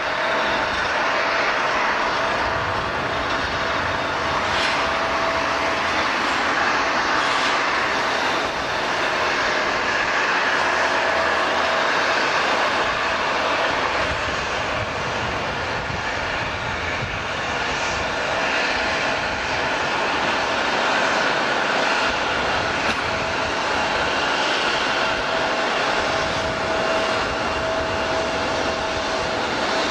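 Airliner's engines running steadily: an even rushing noise with a steady whine through it.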